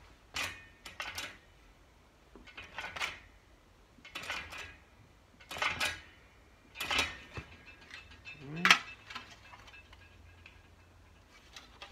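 Hand-lever metal shrinker clamping the flange of a sheet-steel patch panel: a short metallic clank with each pull of the lever, about seven strokes at uneven intervals of a second or so, shrinking the edge to curve the piece.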